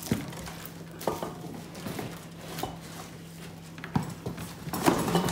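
Scattered knocks, bumps and scrapes of a large cardboard-boxed freezer being handled and shifted in a doorway, with a cluster of knocks near the end. A low steady hum runs underneath.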